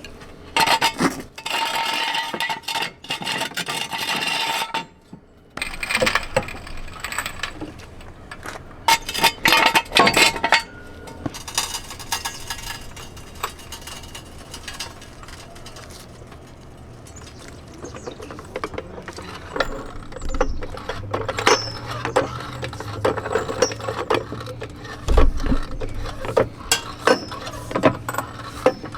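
Metal tools and parts clinking and clattering, with short scraping sounds, as hand tools are handled during an oil and transmission fluid change.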